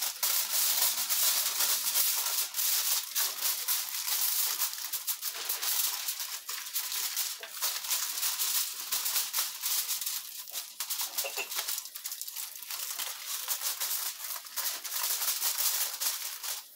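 Aluminium foil being crinkled by hand and pressed down around the rim of a metal roasting pan: a dense crackling rustle that thins out into more separate crackles in the second half.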